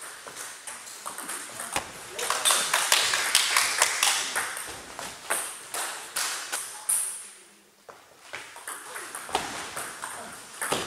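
Table tennis ball being struck by rubber bats and bouncing on the table: an irregular run of sharp, light pocks, with more rallies from another table mixed in.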